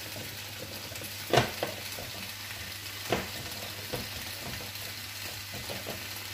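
Hands mixing and kneading pizza dough with flour in a mixing bowl: a steady rubbing, stirring sound with a few soft knocks against the bowl, about one and a half and three seconds in.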